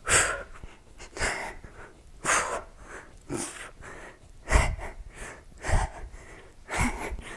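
A woman's heavy exertion breathing during weighted crunches: a short, forceful breath about once a second, in time with each rep.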